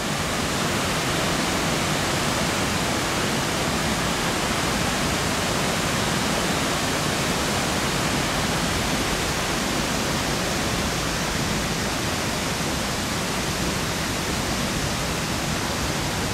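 Water pouring over an old concrete dam spillway into the river: a steady, even rush of falling water.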